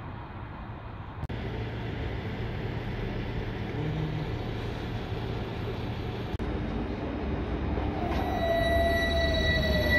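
Bielefeld Stadtbahn light-rail trams at stops: a steady low hum from a tram standing with its doors open, broken twice by abrupt cuts. Near the end, as a tram moves along the street, a steady high whine and a slowly falling tone come in, and the sound grows louder.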